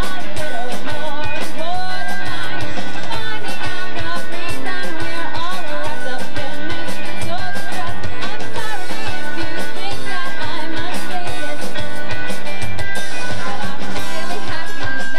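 Live rock band playing, with a woman singing lead over guitar and drums.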